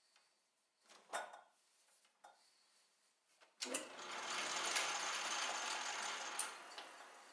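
A single metal clunk about a second in. From about midway, an Atlas metal lathe's motor and belt-driven spindle run with a steady whir for about three seconds, then are switched off and wind down.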